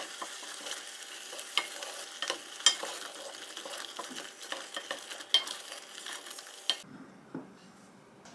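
Wooden spoon stirring a thick, simmering mushroom soy-milk soup in a pot, with a steady bubbling sizzle and scattered clicks of the spoon against the pot as the soup is reduced to thicken. The stirring and simmer stop about seven seconds in.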